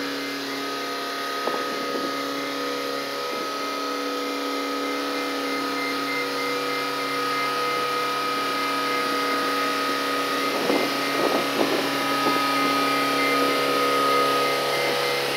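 Wise travel lift (mobile boat hoist) running steadily as it drives slowly with a yacht slung beneath it, an even engine drone with a thin whine over it that grows slowly louder as it comes closer. A few short rattles about ten to twelve seconds in.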